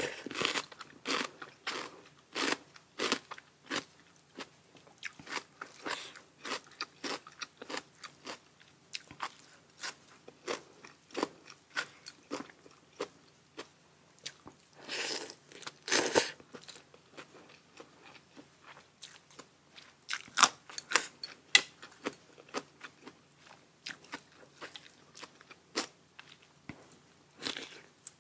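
Close-miked eating sounds: a person biting and chewing crunchy food in a string of quick, sharp crunches. Near the middle come a couple of longer, louder noises.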